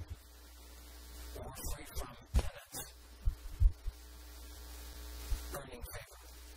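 Low steady electrical hum with a few scattered clicks and knocks; the hum drops out briefly near the end.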